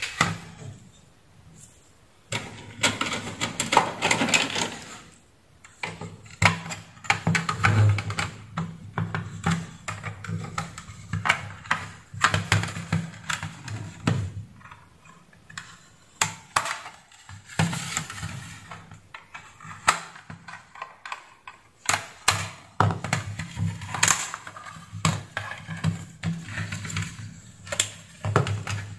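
Hands and a small screwdriver working on a plastic router case: irregular clicks, taps and scrapes as screws are backed out and the plastic shell is unclipped and lifted off the circuit board.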